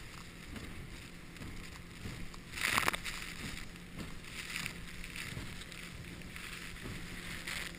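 Small boat under way, with a low steady motor hum beneath a rushing haze of wind and water noise that swells in gusts, the strongest about two and a half seconds in.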